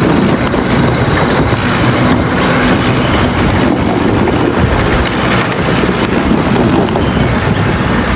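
Plastic toy tanker truck pushed back and forth by hand across a plywood board, its wheels and running gear making a loud, steady rolling rumble.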